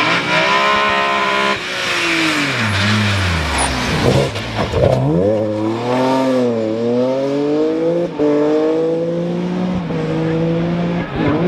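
BMW 1M Coupé rally car's twin-turbo straight-six engine driven hard past the spectator: the revs drop steeply as it brakes and shifts down for a corner, then climb again as it accelerates through the loose-surface bend and away, with a gear change about eight seconds in.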